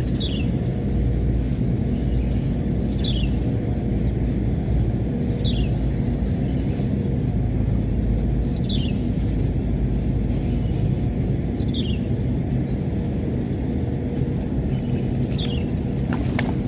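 Steady low outdoor rumble with a small bird's short falling call repeated about every three seconds.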